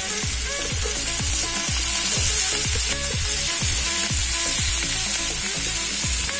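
Masala-marinated fish sizzling steadily as it fries in hot oil in a pan. Background music with a steady beat plays along.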